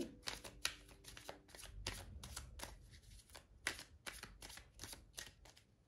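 A deck of tarot cards shuffled by hand: a quick run of soft card slaps and flicks, about three or four a second.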